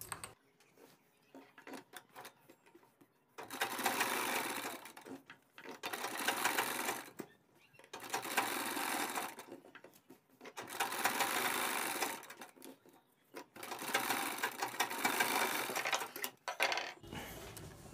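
Domestic sewing machine stitching in about five short runs with brief pauses between them, starting a few seconds in. It is running a loose basting stitch along a neckline edge.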